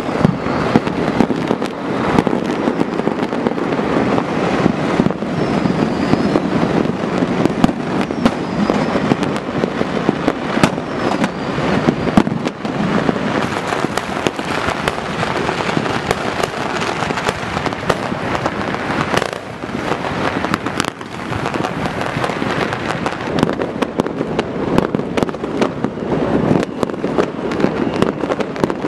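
Dense, continuous crackling and popping of many fireworks and firecrackers going off at once, with a short lull about twenty seconds in.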